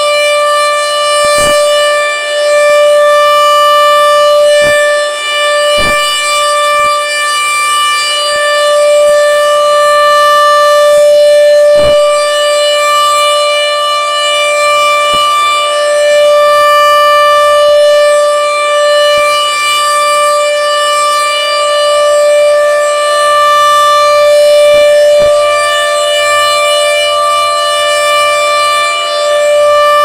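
HOR Super Sirex dual-horn rotating storm siren sounding a steady Alert tone, getting louder and softer as the horns turn.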